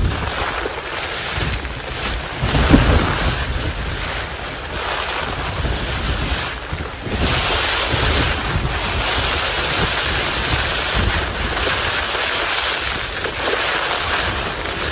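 Gale-force wind gusting against a Cloud Peak 2 tent: a continuous rushing with a low buffeting rumble, which swells louder about seven seconds in and stays up.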